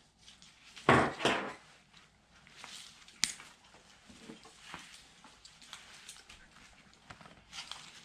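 Nylon mesh backpack being handled: fabric rustling, with a sharp plastic buckle click about three seconds in as a side part is unclipped. About a second in there is a short, loud, two-part voice-like sound.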